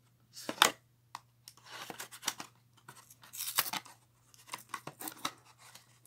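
Knife blade slicing through the edge of a thin cardboard Kinder Joy box, a string of irregular short scrapes and rips as the card is cut open.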